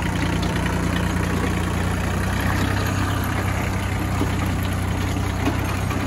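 Compact tractor engine running steadily at a low, even speed as the tractor drives slowly along.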